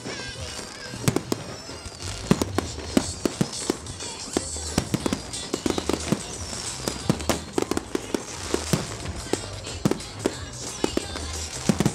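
Aerial firework shells bursting in many sharp bangs and crackles in quick, irregular succession, with music playing underneath.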